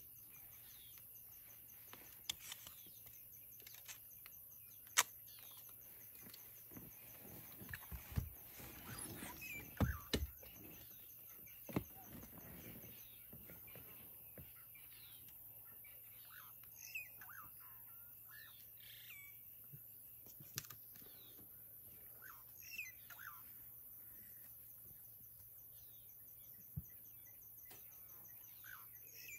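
Faint evening bush ambience with scattered short bird chirps. A few sharp knocks and a stretch of rustling come about a quarter to nearly half of the way through.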